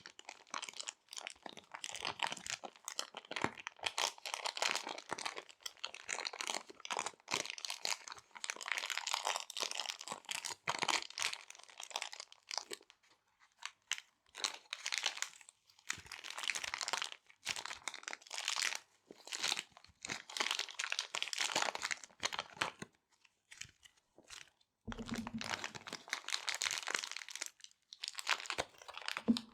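Small resealable plastic bags being crinkled and handled, giving an irregular crackle with a couple of short pauses.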